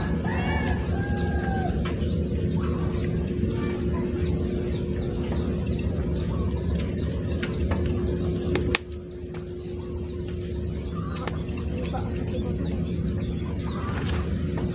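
Chickens clucking, with many small birds chirping, over a steady low rumble. About nine seconds in, the background drops abruptly and then builds back up over the next few seconds.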